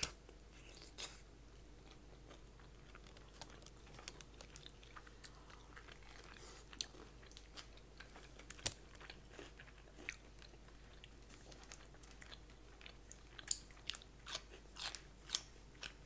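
A person chewing and biting food close to the microphone: irregular short, sharp mouth clicks and smacks, coming thicker and louder near the end.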